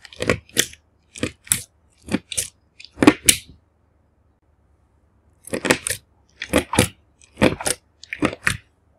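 Clear slime with glitter and beads mixed in, squeezed and pressed by fingers, giving short squelching clicks in pairs about once a second, with a pause of about two seconds in the middle.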